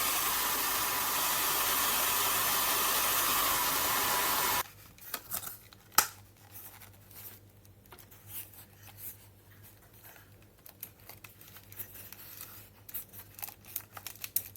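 AINA hand-held hair dryer blowing steadily, switched off about four and a half seconds in. Light clicks and handling of the dryer follow, with one sharp click about six seconds in.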